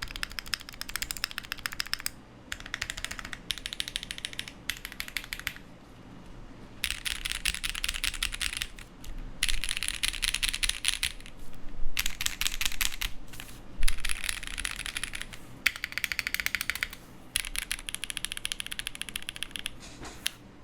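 Typing on a Ginkgo65 custom mechanical keyboard with Lotus switches and GMK keycaps: rapid runs of keystrokes with short pauses between them, and a few louder single strokes partway through.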